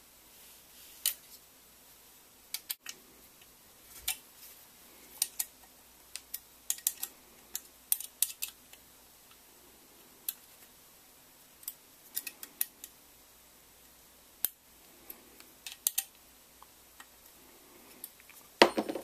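Scattered light metallic clicks and taps as an UltiMAK top rail is handled and seated by hand on an AK's handguard.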